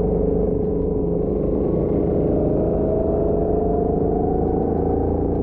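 Go-kart engine running hard at speed, its note rising slowly as the kart accelerates, heard from the driver's seat.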